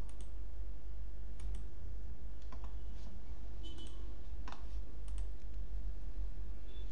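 A few faint computer mouse clicks, spaced irregularly, over a steady low electrical hum.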